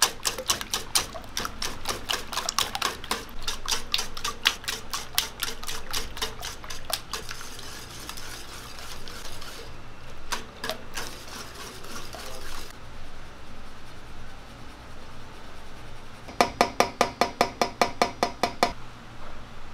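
Wire whisk beating eggs in a stainless steel bowl: rapid rhythmic clinking of the wires against the metal for the first several seconds, thinning to a few clinks, then quieter. Near the end, a quick regular run of about five metallic taps a second as a metal flour sieve is worked over a steel bowl.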